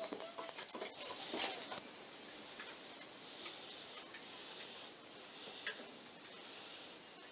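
Faint classroom sounds of children writing at wooden desks: scattered light clicks and knocks, busiest in the first two seconds, over a soft hiss.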